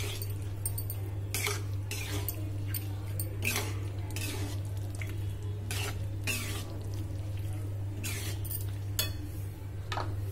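A metal spoon scraping and clinking against a metal kadai as thick, sticky mango pieces in jaggery syrup are stirred. The strokes are irregular, about one a second, over a steady low hum.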